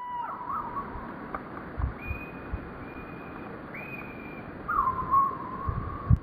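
Slowed-down birdsong: a few long, drawn-out whistles at different pitches, each held for up to a second and a half. Several short low thumps, the loudest near the end.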